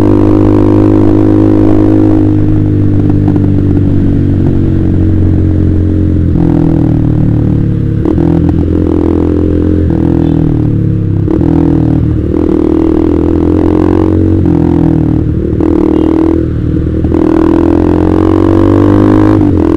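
Honda CBR150R's single-cylinder engine through a KJ Pro Performance aftermarket exhaust, running under way. It is a steady drone at first, then from about six seconds in the pitch drops and climbs again every second or two as the throttle is opened and closed.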